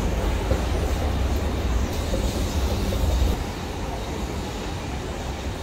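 Deep rumble of a metro train moving through an underground station. It is strongest for the first three seconds or so, then eases off into a lower background rumble.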